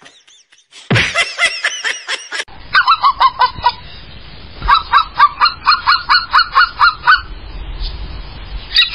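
Laughter for the first couple of seconds. Then a goose honks in quick runs of short calls, about four a second, with pauses between the runs.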